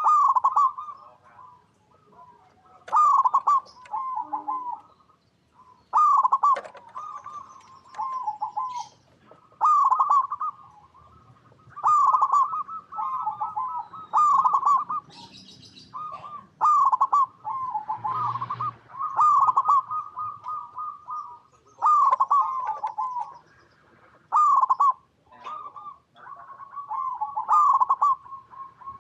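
Zebra dove (perkutut) cooing: phrases of rapid, stuttering coos repeat every two to three seconds.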